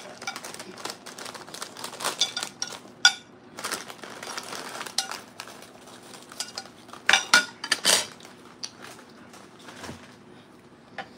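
Eating and table-handling noises: a paper plate tipped up to drink the leftover aguachile juice, and a snack bag crinkling as tostada chips are pulled out. The sound is a run of short crackles and clicks, loudest about three seconds in and again at seven to eight seconds.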